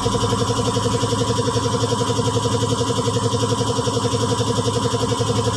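Small engine idling steadily, with an even, rapid pulse.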